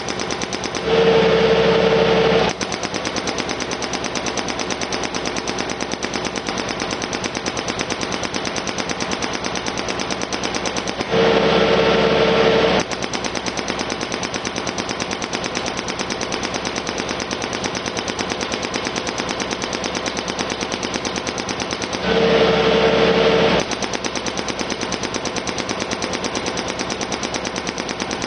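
Kent KF9 hydraulic hammer on a compact track loader, its chisel pounding into gravel and dirt with rapid, steady blows. Three louder spells of about a second and a half come roughly every ten seconds.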